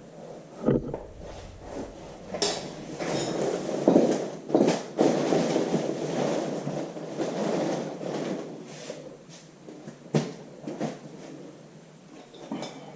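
Irregular metal clicks, knocks and scraping as a cylinder sleeve is drawn into a tractor engine block with a homemade sleeve puller. The sharpest knocks come about a second in, near two and a half, four and five seconds, and again around ten seconds.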